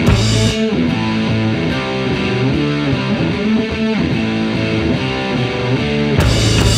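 Rock music with electric guitar, starting suddenly after a brief silence.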